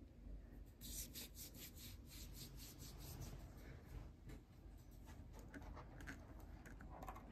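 Faint, soft swishing of hands rubbing body cream into the skin, in a run of quick, short strokes.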